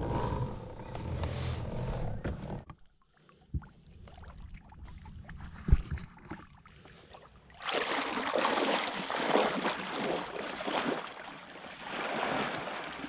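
A person swimming, arms splashing the water surface in quick strokes, starting about eight seconds in and the loudest part. Before that there is a low rumble and two sharp knocks.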